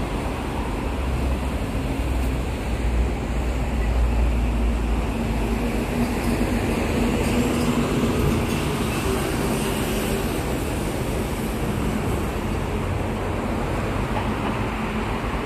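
Steady noise of road traffic from a city street, with a low rumble. Around the middle a vehicle's engine hum rises above the traffic and then fades.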